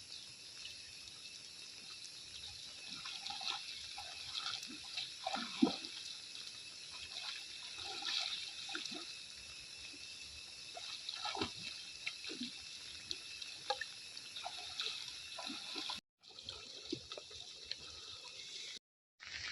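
Faint, irregular splashing and dripping of pond water as floating weed is cleared by hand, over a steady high hiss. The sound cuts out briefly twice near the end.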